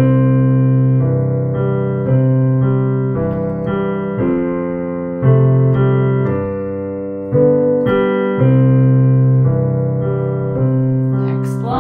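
Piano playing the teacher's accompaniment part of a beginner duet, slow held chords with a new one struck about every second.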